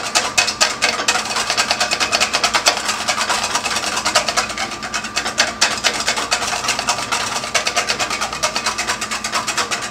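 Wire whisk beating egg yolks in a stainless steel bowl set over a saucepan on the heat, the wires clicking against the metal in a fast, steady rhythm of several strokes a second. The yolks are being gently cooked as the base of a hollandaise sauce.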